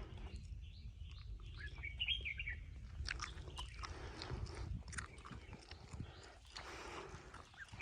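Small birds chirping a few times, about two seconds in, over scattered crunching footsteps on a woodland trail.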